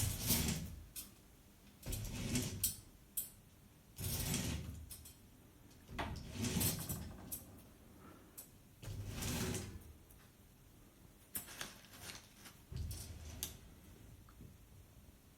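Repeated sliding, rubbing handling noises with a few clicks, each lasting about a second and coming roughly every two seconds.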